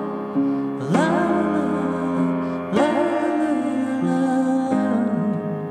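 Piano music: the closing bars of a slow song, getting quieter near the end.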